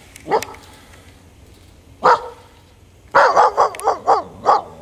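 Young husky barking: two single barks, then a quick run of about seven barks in the last second and a half.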